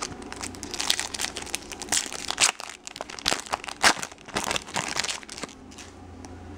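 Foil wrapper of a Bowman baseball card pack being torn open and crinkled by hand, in a run of sharp crackles that dies away near the end as the cards are drawn out.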